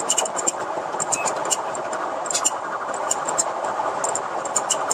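Police patrol car driving at high speed in a pursuit: a steady rush of engine and road noise, with many faint, sharp ticks scattered through it.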